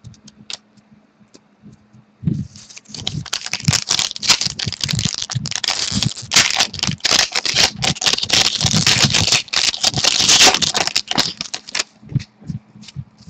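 Foil wrapper of a hockey card pack being torn open and crumpled: a dense crackling rustle starting about two seconds in and lasting nearly ten seconds, with a few light handling clicks before and after.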